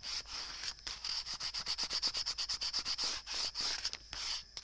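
A bone folder rubbed briskly back and forth over paper, pressing a crease into a fold: quick even scraping strokes, several a second, with a short pause near the end.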